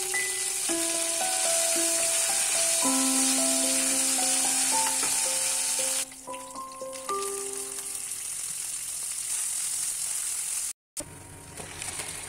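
Hot oil sizzling loudly as garlic, dried red chillies and whole spices fry in a pan; the sizzle stops abruptly about halfway through. Background music, a simple melody of single notes, plays over it.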